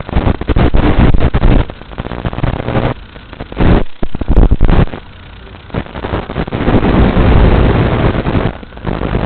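Wind buffeting and motor noise picked up by the onboard camera of an FPV quadcopter. It comes in loud surges with several short, quieter lulls between them.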